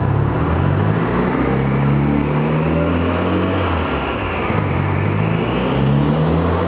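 Mitsubishi Lancer Evolution's turbocharged four-cylinder engine running loud on a chassis dynamometer, driving the rollers, its pitch dipping and climbing again a few times as the revs change.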